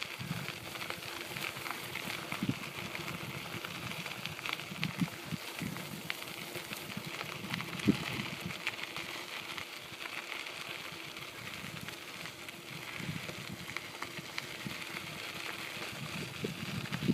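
Bicycle rolling along a gravel trail: a steady crackle of tyres on gravel with small rattles and clicks, and one sharper knock about halfway through.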